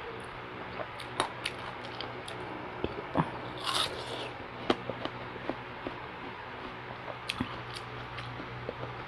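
Close-miked eating of yellow watermelon: biting and chewing the crisp, juicy flesh, with scattered small mouth clicks. The loudest bite comes a little under four seconds in.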